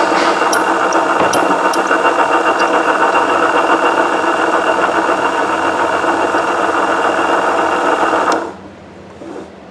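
Motor-driven coil winder spinning a subwoofer voice-coil former as AWG26 magnet wire winds on. It runs steadily with a whine and a few light ticks early, then stops abruptly about eight seconds in, as the second layer of the coil is finished.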